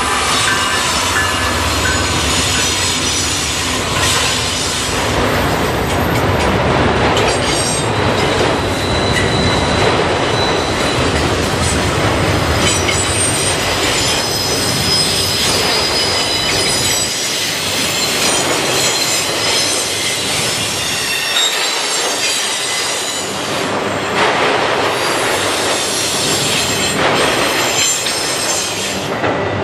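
A Norfolk Southern autorack freight train rolls past close by. The trailing diesel locomotives give a low rumble for the first few seconds, then the autorack cars run by with high-pitched steel wheel squeal and occasional clacks of wheels over the rail joints.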